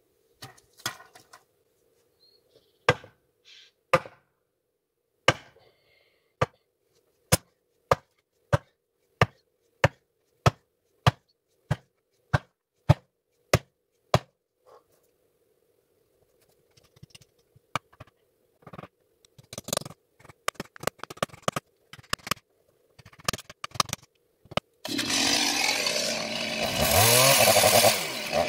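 A steady run of sharp hammer strikes, about one and a half a second, then scattered lighter knocks. About 25 seconds in, a chainsaw starts and runs loud to the end.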